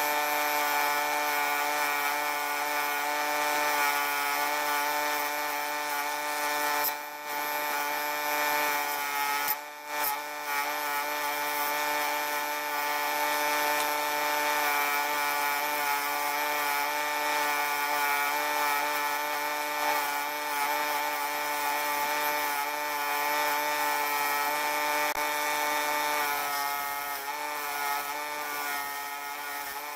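A small power tool's motor running steadily with a high whine. It dips briefly twice, about 7 and 10 seconds in.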